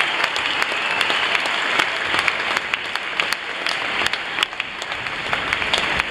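Concert audience applauding: dense, steady clapping from a large crowd.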